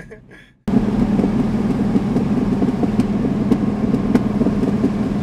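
2005 Dodge Viper SRT-10's 8.3-litre V10 running steadily under way, heard from inside the cabin as a loud, even drone. It cuts in abruptly a little under a second in.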